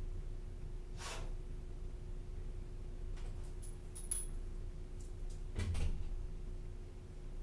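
A dog moving about in a quiet room: a short rustle about a second in, a brief metallic jingle of its collar tags around four seconds, and a dull thump near six seconds, over a steady electrical hum.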